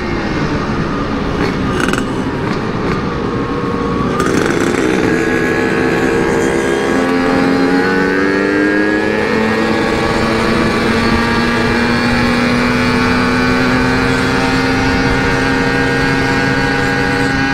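Yamaha RX-King 135cc two-stroke single running through an aftermarket CRC-series racing exhaust while being ridden and accelerated. The engine note drops about four seconds in, then climbs steadily through a long pull.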